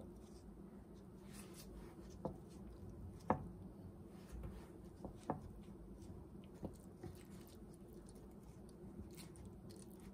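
A few scattered light clicks and taps over a faint steady hum, the sharpest about three seconds in.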